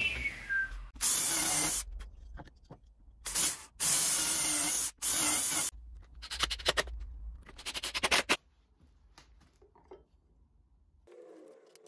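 Cordless drill running in several short bursts, then a quick run of shorter ones, as a pine batten is drilled and screwed to the wall.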